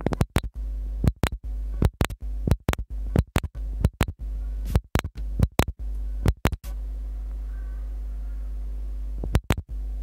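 Background electronic music: a steady low drone chopped by sharp clicks and stuttering scratch-like cuts, which ease off for a couple of seconds before returning near the end.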